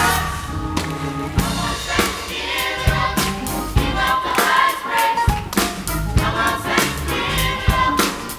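A youth choir singing a gospel song with band accompaniment, drum hits keeping a steady beat under the voices.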